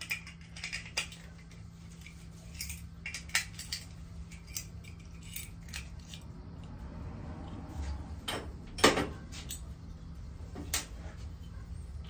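Light metallic clicks and clinks of a small sheet-metal spill switch being handled, with one sharper click about three quarters of the way through, over a steady low hum.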